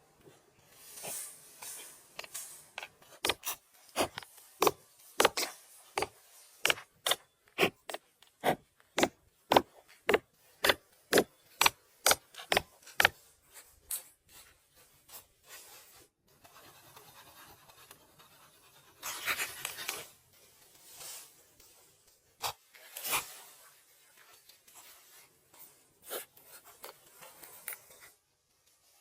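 Hand work on wood: a long run of sharp, evenly spaced knocks, about two a second, then quieter rubbing and scraping with a few scattered knocks.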